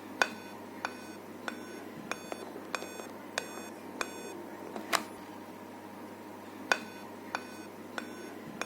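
Dell laptop's POST beep code through a small speaker: a row of seven short electronic beeps, about one and a half a second, then a pause before the sequence starts again. A seven-beep code on a Dell signals a processor or motherboard fault. A sharp click sounds about five seconds in.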